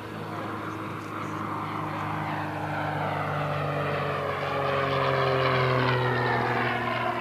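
Zlin Z-242L's four-cylinder Lycoming piston engine and propeller droning through a flypast. It grows louder to a peak about five seconds in, and its pitch falls as it passes.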